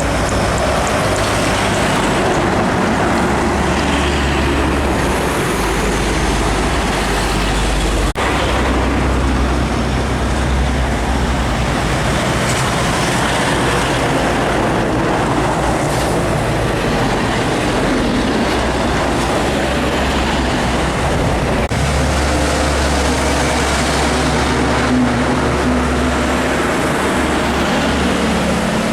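Heavy diesel trucks and traffic passing on a busy road, a steady wash of engine and tyre noise. A deep engine rumble swells as trucks pass close, about five seconds in and again around twenty-two seconds in.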